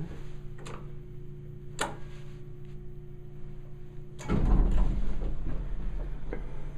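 Otis hydraulic elevator car with a steady low hum and a couple of sharp clicks, then about four seconds in the car doors start sliding with a rumbling, rattling noise.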